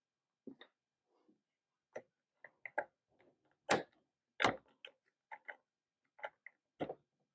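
Irregular light clicks and taps, about a dozen spread over several seconds, from hands working on a car's plastic dashboard trim panel and its screws with a cordless impact driver at hand.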